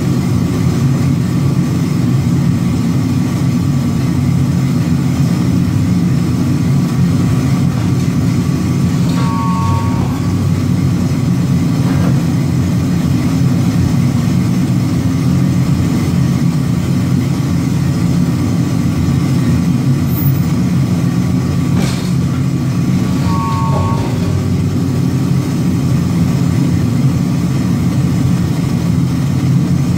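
Industrial forging press running with a steady, loud low hum while it squeezes a red-hot chisel blank between its dies. A couple of faint knocks and two short whistle-like tones, one about nine seconds in and one near 24 seconds, sound over the hum.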